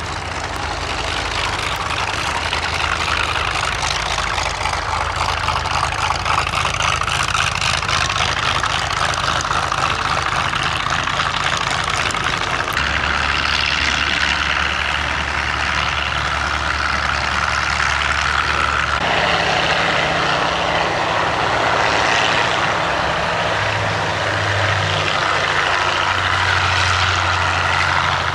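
Hawker Fury II's Bristol Centaurus 18-cylinder sleeve-valve radial engine running at low power, propeller turning, as the fighter taxis on grass. The low engine note steps in pitch about halfway through and again a few seconds later.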